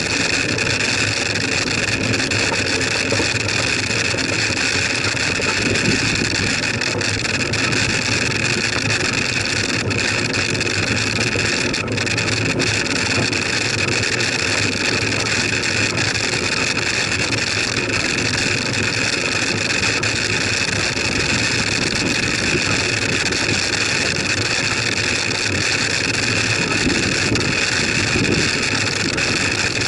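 Steady rushing road and wind noise from a bicycle riding on a paved street, picked up by a camera mounted on the bike. It holds an even level throughout.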